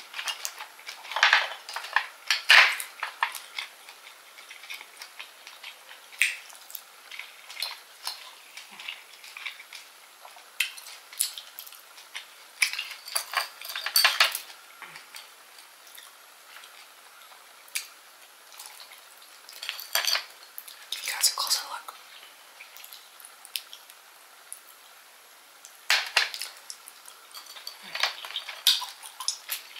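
Grilled oyster shells clinking and scraping against one another and against a metal sheet pan as they are picked up and handled, in short flurries of clatter every several seconds with quieter gaps between.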